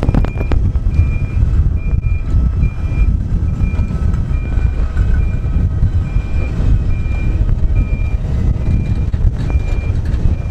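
A railcar mover towing a retired Budd R32 subway car over street track: a steady low rumble of the mover's engine and the rolling car, with a sharp knock at the start. Over it, a high warning beep repeats about every two thirds of a second.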